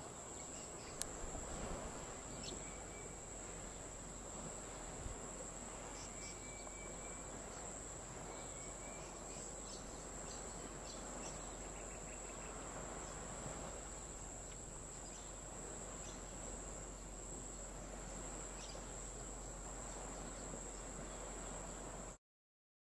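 Steady high-pitched drone of insects, with a few faint short chirps scattered through; the sound cuts off suddenly near the end.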